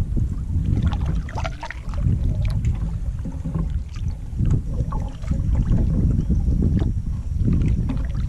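Wind rumbling on the microphone of a canoe being paddled, the noise swelling and easing every second or two, with small splashes and knocks from the paddle.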